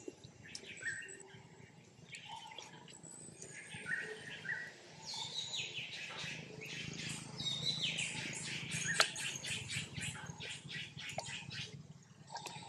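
Birds chirping: a few short high chirps, then from about five seconds in a fast series of harsh calls, about four a second, that stops about ten seconds in.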